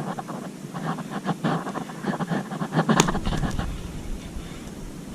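Scattered light clicks and knocks, with one sharp click about three seconds in followed by a brief low rumble.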